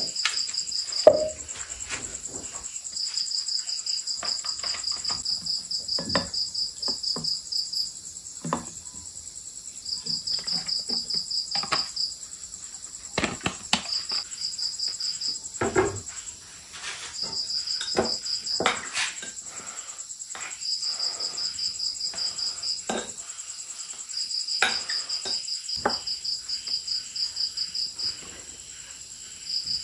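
Insects calling: bursts of rapid pulsed chirping, each a few seconds long, over a steady high trill. Scattered knocks and taps run through it, the sharpest about a second in.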